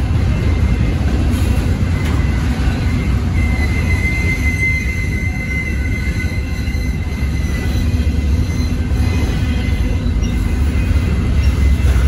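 Freight cars rolling past at a crossing: a steady, loud low rumble of steel wheels on rail, with a thin high wheel squeal that is strongest from about three to six and a half seconds in.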